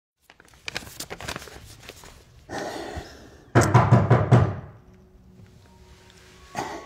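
A quick run of hard knocks on a door, about seven or eight raps in a second, about halfway through. Before it, paper banknotes are rustled as they are handled and counted.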